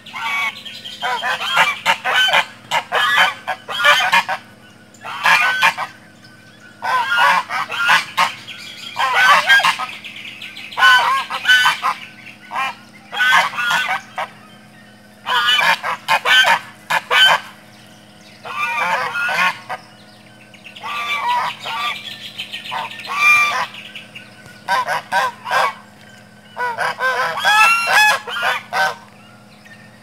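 Several domestic geese honking together in loud, harsh bouts of rapid repeated calls, broken by short pauses. This is the angry alarm honking of geese squaring up to someone they want to drive off.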